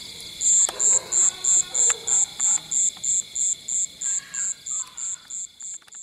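Night insects calling: a high-pitched chirp pulsing about three times a second over a steady high-pitched insect drone, with a few faint crackles from the bamboo fire.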